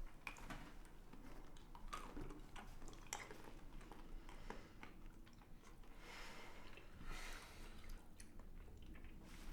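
Quiet, close-up crackles and clicks, with a stretch of soft rustling about six to seven and a half seconds in: small sounds of chewing or handling something.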